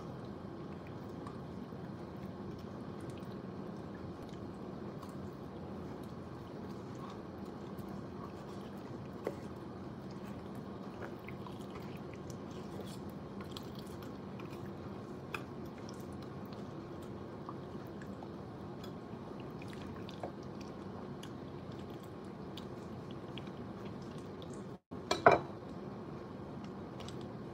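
Faint wet squishing and small knife clicks as raw chicken is cut and the bone worked free on a wooden cutting board, over a steady low hum. A short louder sound comes near the end.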